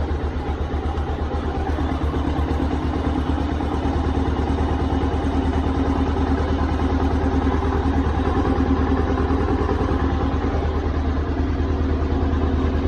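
Bajaj Avenger 220 DTS-i single-cylinder twin-spark motorcycle engine idling steadily with an even, regular exhaust pulse, running on newly fitted Splitfire twin-core spark plug cables.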